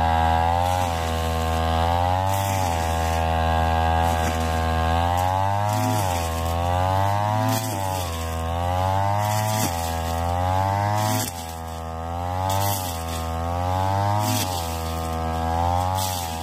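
Ryu backpack brush cutter's small petrol engine running at high revs. Its pitch dips and climbs again about every two seconds as the cutting head is swung through thick, tall grass.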